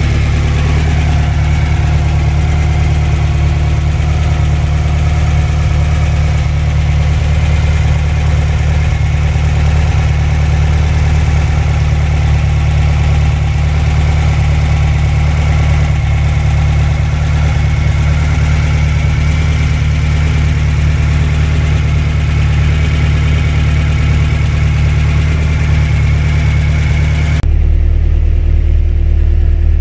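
Air-cooled Volkswagen Beetle flat-four engine running steadily while the car is driven, a steady low drone. Near the end the sound changes abruptly to a deeper drone.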